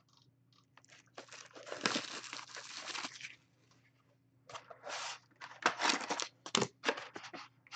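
Plastic shrink-wrap crinkling and tearing as it is stripped off a cardboard trading card box, for about two seconds. Then a string of short rustles and taps as the box is opened and the foil-wrapped pack is slid out.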